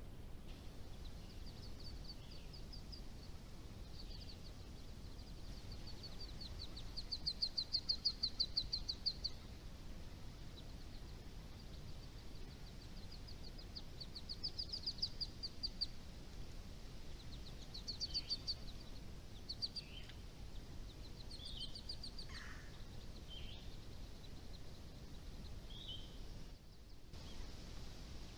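Wild songbirds singing over a steady low background hiss: several rapid, high trills a second or two long, the loudest about a quarter of the way in, with scattered short chirps and calls between them.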